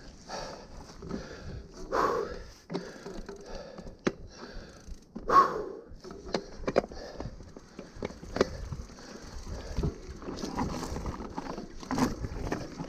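Mountain bike creeping down a dry dirt trail: tyres scuffing and crunching over dirt, dry leaves and pine needles, with irregular knocks and clicks from the bike and a couple of louder scrapes.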